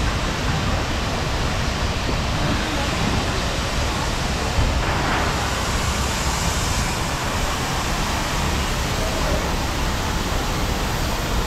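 Wind and rain on a GoPro microphone: a steady rushing noise, heaviest and gustiest at the bottom, with a small bump about four and a half seconds in.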